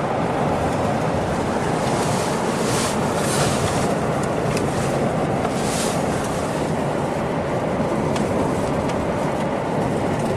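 Steady road and wind noise inside a moving vehicle's cabin at highway speed: a dense, even rush with a few brief hissy swells.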